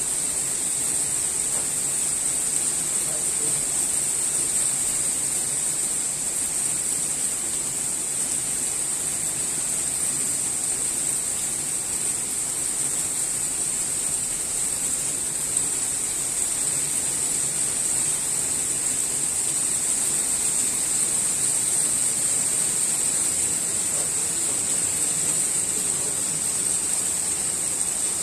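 Rain shower falling steadily, an even high hiss that does not change.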